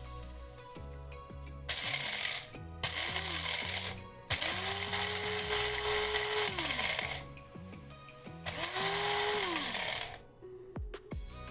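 Krups electric blade coffee and spice grinder pulsed four times on coffee beans: two short bursts, then a long run of about three seconds, then a shorter one. The motor's whine rises as each burst starts and sinks as it spins down, under the rattle of beans being chopped. Background music plays throughout.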